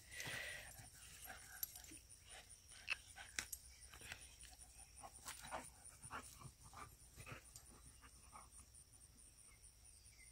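Faint sounds of two boxer dogs at rough play: breathing and scuffling, a string of short scattered noises that thin out after about seven seconds.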